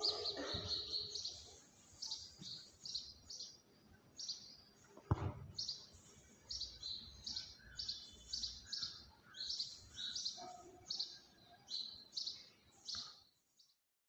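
House sparrow chirping, a long series of short high chirps about one or two a second that stops shortly before the end. A single brief knock sounds about five seconds in.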